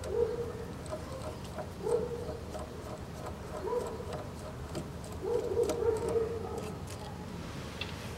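Light rapid ticking of a Torx T10 bit driver being turned by hand to undo the small screws on the Haldex coupling pump's strainer. Four short whines at a middle pitch, the longest about a second long past the middle, stand out above the ticking.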